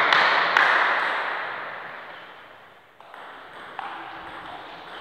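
Celluloid-style table tennis ball clicking a few times off bat or table, sharp pings with an echo. A loud rushing noise fades away over the first couple of seconds.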